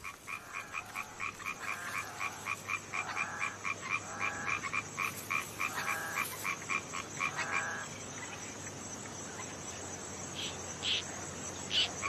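A chorus of frogs croaking: a fast run of short clicking calls, about four a second, over deeper croaks about once a second. It thins out after about eight seconds, leaving a few short high calls near the end.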